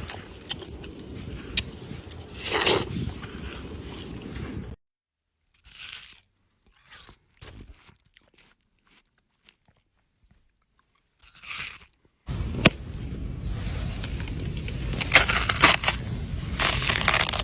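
Crunchy bites and wet chewing of watermelon, with a stretch of near silence in the middle.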